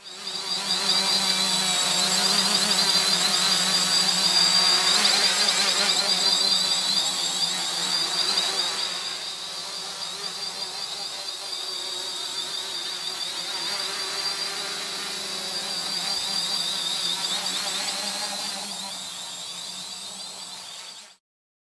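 Quadcopter with four Cobra 2217 950kv brushless motors spinning 10x4.5 propellers, flying with a steady whine. It is loudest for the first several seconds and somewhat quieter after that. It cuts off suddenly near the end.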